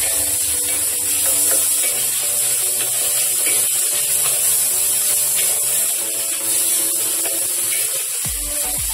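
Food sizzling in a hot wok as a wooden spatula scrapes and tosses it against the metal, over steady background music.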